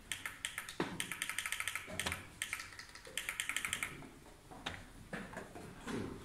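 Fast runs of small clicks, about ten a second, each run under a second long, from a chess clock being set by hand. Two louder single knocks come near one and two seconds in.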